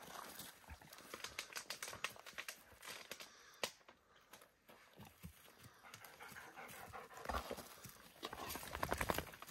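Belgian Malinois dogs panting hard after a long trot, with a quick run of clicking and scuffing sounds near the end.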